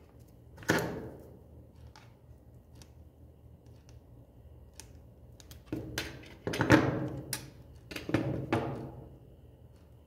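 Pliers and wiring parts being handled and set down on a wooden workbench: a sharp knock about a second in, then a cluster of clacks and knocks from about six to nine seconds in.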